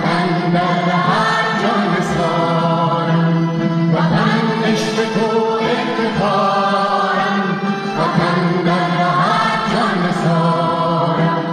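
A Dari-language patriotic song: voices singing long, gliding melodic phrases over a steady low drone of accompaniment.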